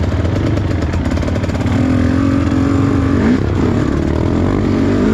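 Trail motorcycle engine running under throttle, its note held steady, dropping about three seconds in, then climbing again near the end.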